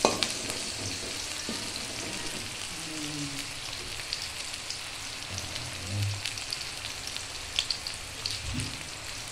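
Chili, tomato, garlic and shallot sizzling in hot oil in a wok as they are stir-fried, with a steady crackling hiss. A metal spatula ticks and scrapes against the pan now and then, with one sharp knock right at the start.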